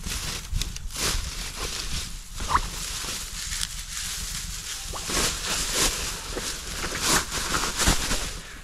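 Dry grass and reed stalks rustling and crackling in irregular bursts as handfuls are pushed and worked into the grass covering of a duck blind.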